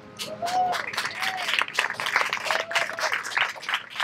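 Audience applauding, with many hands clapping in an irregular patter.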